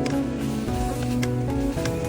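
Background music: held instrumental notes with light percussion hits.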